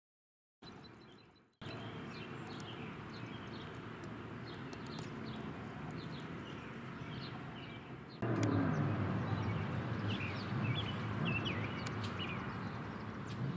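Small birds chirping over a steady low rumble. About eight seconds in, the rumble turns suddenly louder with a pitch that slides up and down: an approaching Airbus H135 helicopter.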